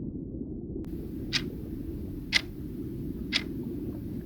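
Countdown-timer sound effect ticking once a second, three ticks, over a steady low rumbling background bed; a faint hiss comes in about a second in.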